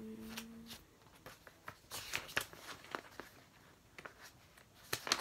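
Faint paper rustling and soft clicks of colouring-book pages being turned while looking for a picture, opening with a brief hummed 'mm'. A sharper click or tap comes near the end.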